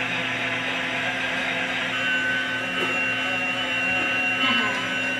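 Battery-operated bump-and-go toy train, its small electric motor and gears whirring steadily as it rolls along. A thin steady high tone joins about two seconds in.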